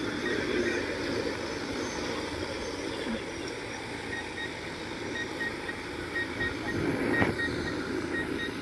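Large agricultural spray drone's rotors running steadily as it hovers low over rice. From about halfway through, a short electronic beep repeats at an even pace, and there is a single knock near the end.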